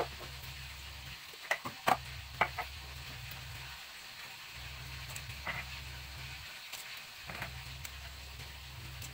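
Sharp plastic knocks as a clear plastic food-chopper bowl is set down on a counter, then lighter taps as handfuls of red chili peppers are dropped into it, over a low steady hum.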